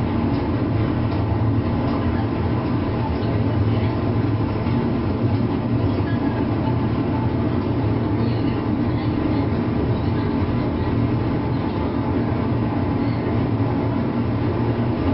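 Interior running sound of a JNR 201 series electric train car (MoHa 201-254), heard from directly above its armature chopper control unit. Steady rolling noise with a steady hum of several tones.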